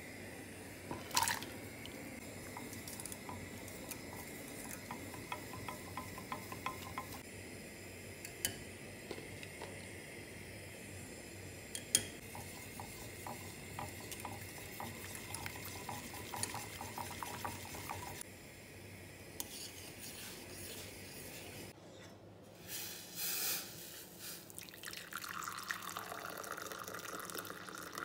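A spoon stirring chocolate into hot milk in a stainless steel saucepan: light, rapid clicks and scrapes of the spoon against the pan, with a couple of sharper knocks. Near the end, liquid pours from the pan into a ceramic cup.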